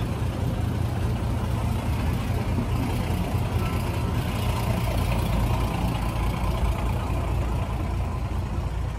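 Steady street traffic noise: the low hum of vehicle engines running along a busy road.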